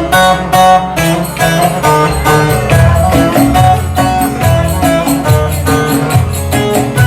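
Instrumental Turkish folk music intro: a plucked string melody over a quick, steady beat of sharp percussion strikes.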